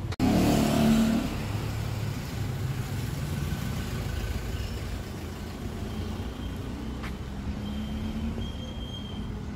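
Street traffic: a motor vehicle's engine passes close and loud in the first second, then a steady low rumble of traffic runs on.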